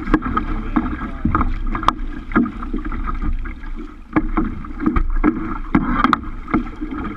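Choppy lake water washing and splashing against a kayak's hull as it is paddled along, with irregular sharp slaps of waves against the hull.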